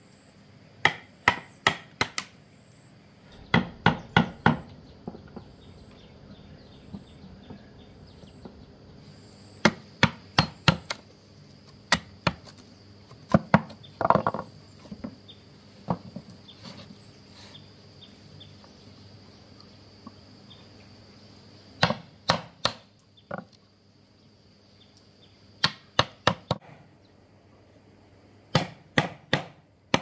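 A blade chopping in quick bursts of three to five strikes, with pauses between the bursts.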